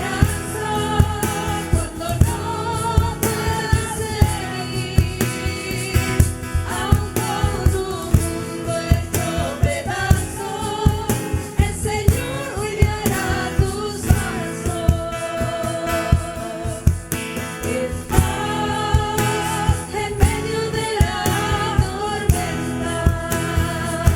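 Christian worship song: singing over a band with a steady drum beat.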